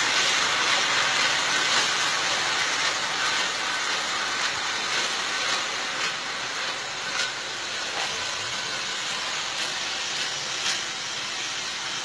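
Bagged banana bunches being hauled along an overhead plantation cableway: a steady hissing rustle with a few faint clicks, slowly fading as the line moves away.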